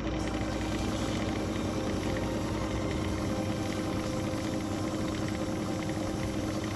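Wood lathe running with a steady motor hum while abrasive held by hand hisses against the inside of the spinning 3D-printed wood-PLA and epoxy cylinder.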